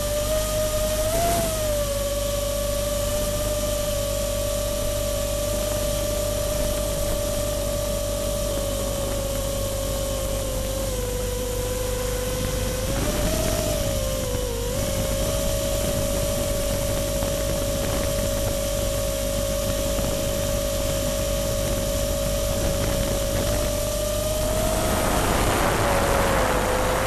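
Electric motor of an FPV drone in flight, a steady hum over constant hiss. Its pitch dips and rises briefly with throttle changes, and a louder rush swells near the end.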